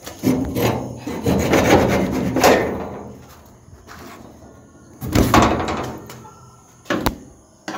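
A jammed wooden door being pushed and rattled without opening: a long stretch of scraping and rubbing, a second shorter bout about five seconds in, and a couple of sharp knocks near the end.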